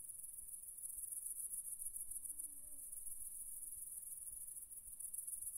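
Chorus of stridulating insects: a faint, steady, high-pitched shrilling. A faint low hum comes in twice near the middle.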